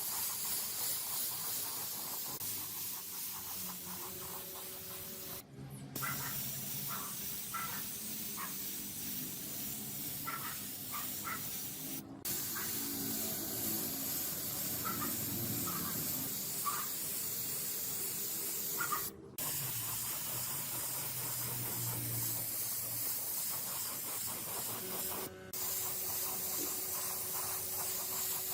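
Steady spraying hiss, broken by brief silent gaps about every six or seven seconds.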